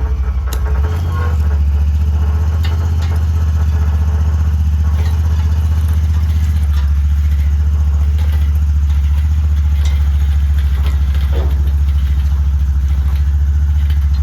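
A vehicle engine running steadily at low revs, with a slight change in its note about a second in and a few light clattering knocks over it.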